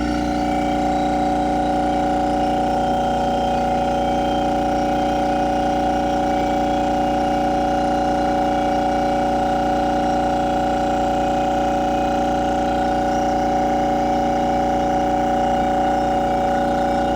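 Overhauled Trane compressor motor running on test, a steady electric hum made of several fixed tones.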